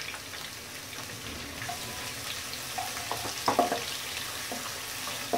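Sliced onions sizzling in hot oil in a nonstick frying pan, with a wooden spatula stirring and scraping through them, the loudest scrapes about three and a half seconds in.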